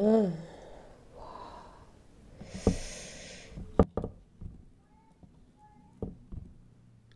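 A breathy rush of air through the nose, like a sniff or snort, about two and a half seconds in, with a few soft clicks and squishes from fingers tearing fried chicken and pinching rice from a plate.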